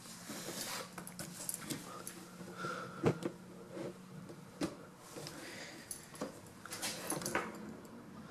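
Laptop wiring and plastic being handled: scattered light clicks and short rustles as thin cables are pulled out of their routing channels in the display lid.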